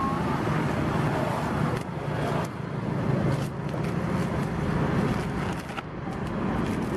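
A steady low engine-like rumble, such as passing street traffic, with a few brief rustles and clicks from plastic takeaway bags and a ladle being handled on a steel counter.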